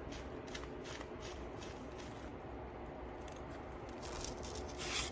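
Faint small clicks and rustling from beads and thread being handled while the beads are strung, with a louder click just before the end.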